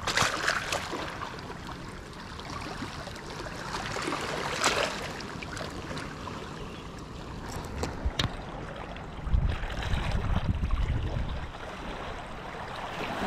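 Small waves lapping against a rocky shoreline, with a gust of wind buffeting the microphone as a low rumble for a couple of seconds past the middle, and a few sharp clicks.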